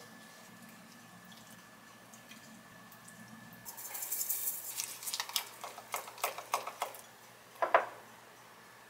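Sesame seeds sprinkled into a glass mug of gochujang sauce: a light patter and a run of small clicks for about three seconds from roughly four seconds in. Near the end comes a single louder knock, the loudest sound.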